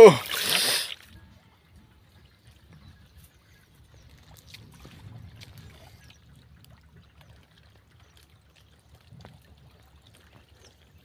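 A loud call breaks off with a short splash of water in the first second. After that there is only faint sloshing and trickling of shallow muddy pond water.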